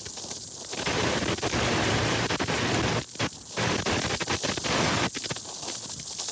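Rushing floodwater of the swollen Lampasas River: a loud, even rushing noise with a low rumble that dips briefly about three seconds in and eases near the end.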